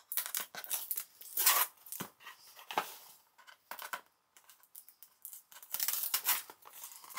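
Hands tearing at the tape and flaps of a cardboard shipping box: a string of irregular scratchy rips and rustles, the loudest about a second and a half in.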